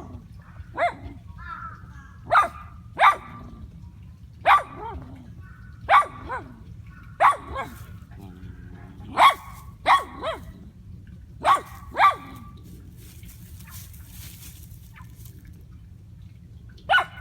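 A dog barking in short, sharp barks, about a dozen of them roughly every second, often in quick pairs, then a pause of about four seconds before one more bark near the end.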